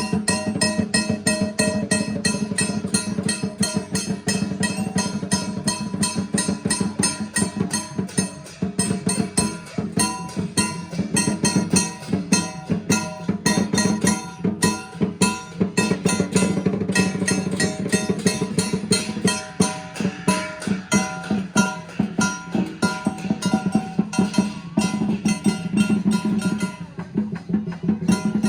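Music led by drums and percussion beating a fast, even rhythm over sustained pitched tones.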